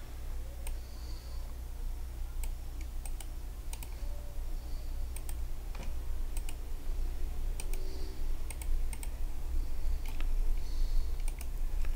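Irregular clicks of a computer keyboard and mouse, a few sharp taps every second or so, over a steady low hum.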